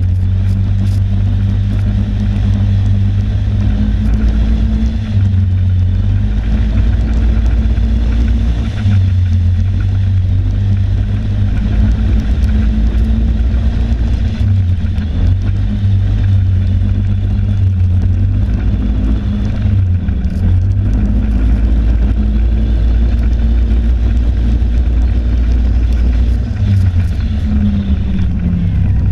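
Snowmobile engine running steadily at speed, its pitch shifting slightly with the throttle and dropping near the end.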